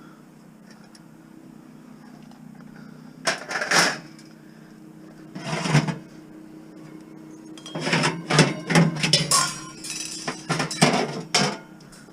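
Scrap metal being handled and loaded: a few loud clanks and bangs, then a quick run of clattering and scraping about eight seconds in, over a steady low hum.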